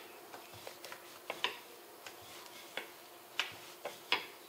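Wooden rolling pin rolling out a disc of wheat-flour dough on a stone countertop, giving a handful of light, sharp knocks and clicks at irregular intervals as the pin meets the stone.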